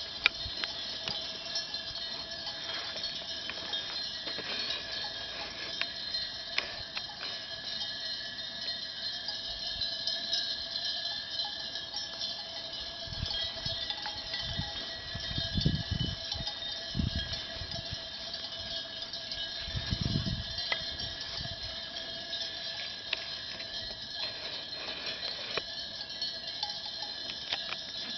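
Bells on a grazing sheep flock clinking and jangling steadily, over a high, even hiss. A few low rumbles come about halfway through.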